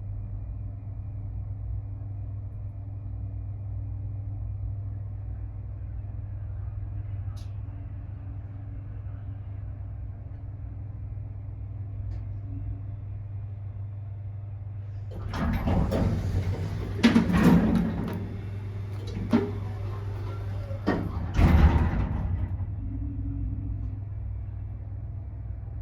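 Elevator with a steady low hum, then its sliding doors opening and closing in the second half, with a noisy rush and several clunks.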